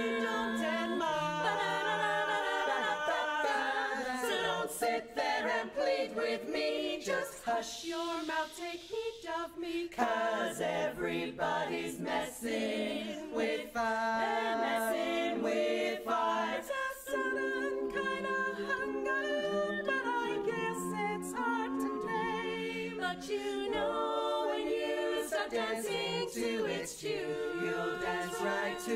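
Eight women's voices, two barbershop quartets combined, singing a cappella in close four-part harmony.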